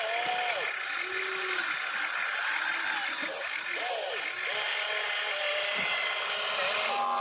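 Small electric motors of a radio-controlled construction toy whining, repeatedly speeding up and slowing down in short runs over a steady high hiss.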